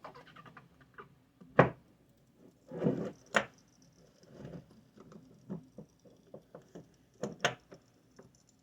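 Handling noise from a hydraulic door closer being moved and worked by hand: a few sharp knocks, a short scrape near 3 seconds, and a run of small ticks and clicks.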